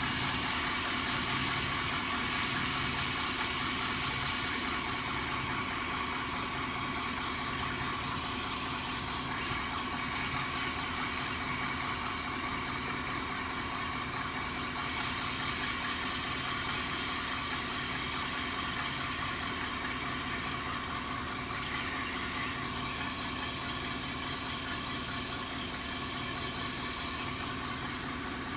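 A 1993 Chevy van's 350 small-block V8 running steadily just above idle, with a low throb that comes about once a second. It is the knock and shaking the owner puts down to a balance issue, perhaps the torque converter, after a transmission rebuild.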